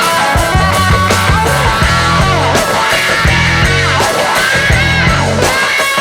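Rock music with electric guitar and drums, loud and steady.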